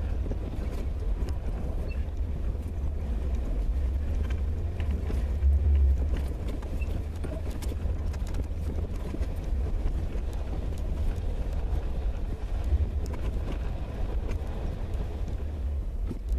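A vehicle driving slowly over a rough dirt track, heard from inside the cab: a steady low engine and road rumble with scattered small knocks and rattles from the uneven ground.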